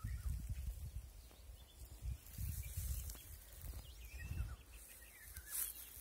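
Songbirds chirping faintly in short, scattered phrases over a low, uneven rumble, which is the loudest thing heard.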